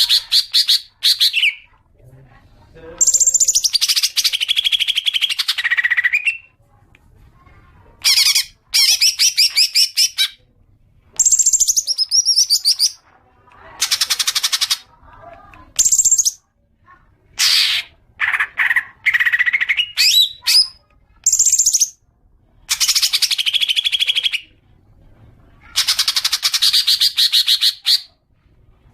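Cucak ijo (green leafbird) singing: repeated phrases of fast, high trilling chatter, each lasting one to three seconds with short pauses between, some phrases falling in pitch at the end.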